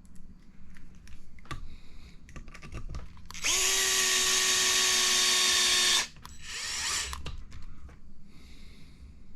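Electric screwdriver running for about two and a half seconds with a steady whine, driving a 10 mm button-head screw into the buggy from the bottom side. Small clicks of parts being handled come before and after.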